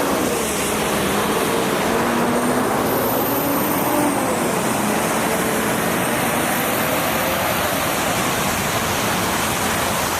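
Steady road traffic: cars driving past one after another, their tyre and engine noise swelling and fading.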